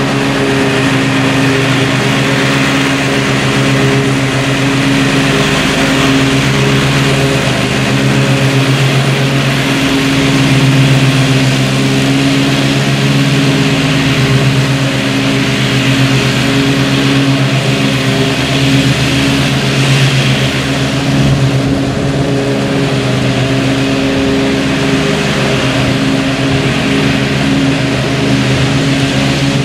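Zero-turn riding mower's engine running steadily under load as its blades cut through thick, tall grass and weeds, mulching the clippings.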